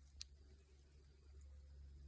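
Near silence: a faint steady low hum with one small click about a fifth of a second in.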